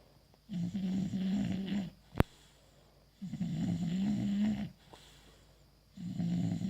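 English bulldog snoring: three long snores, one about every two and a half seconds, each with a low steady buzz. A single sharp click comes between the first and second snore.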